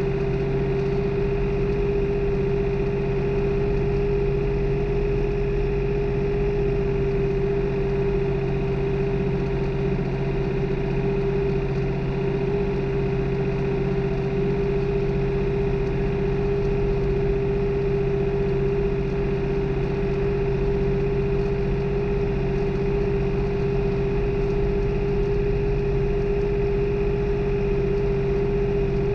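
New Holland farm tractor's diesel engine running steadily during tillage, a constant drone with a steady whining tone over it and no change in speed.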